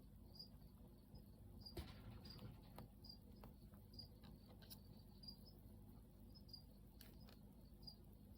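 Crickets chirping faintly, short high chirps repeating about every half second, with a few soft clicks.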